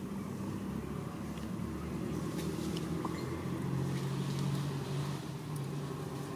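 Low, steady engine hum of a motor vehicle, its pitch shifting a little about halfway through, with a few faint clicks.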